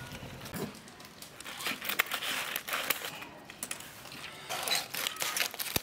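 Aluminium foil crinkling and crackling in uneven spurts as a foil cooking packet is handled by hand, starting about a second and a half in.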